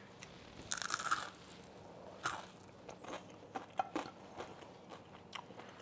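Crunching and chewing of a sauce-coated Korean fried chicken wing: a burst of crackly crunches about a second in, then scattered single crunches.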